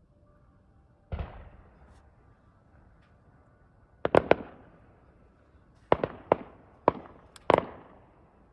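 Fireworks bursting overhead: one dull boom about a second in, then from about four seconds a quick volley of sharp, loud bangs, each trailing off in an echo.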